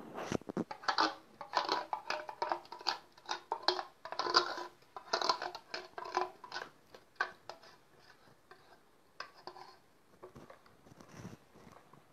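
Irregular clattering and scraping of a container and spoon against a plastic basin as thick natrosol solution is poured into the cleaner mix. The sounds grow sparser and softer after about eight seconds, as the mix is stirred.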